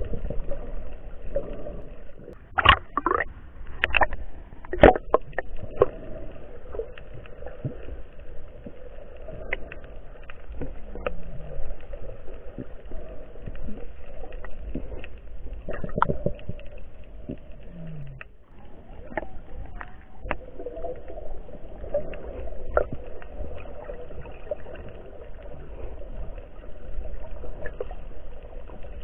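Muffled underwater sound picked up by an action camera in its waterproof housing: a steady low watery rush with scattered sharp clicks and knocks, a cluster of them a few seconds in.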